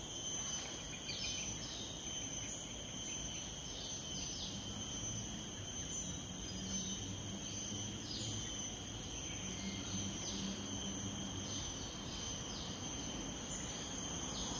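Steady high-pitched drone of insects, with short falling bird calls repeating about once a second.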